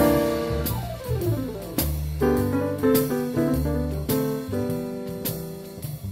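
Jazz piano trio of piano, double bass and drums playing a swinging blues. A quick descending piano run comes about a second in, then short punchy piano chords over bass notes, with cymbal strokes.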